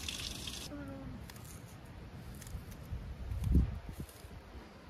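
Running water that stops about a second in, followed by a short animal call. Faint clicks follow as shallots are peeled by hand, and a single dull low thump comes about three and a half seconds in.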